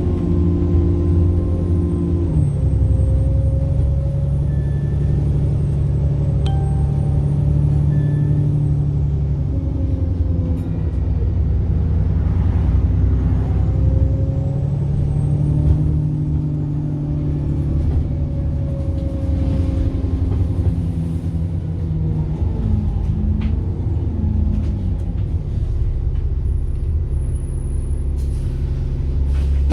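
Diesel engine of a service bus running under way, heard from on board, its note dropping and climbing several times, with a faint high turbocharger whine over it.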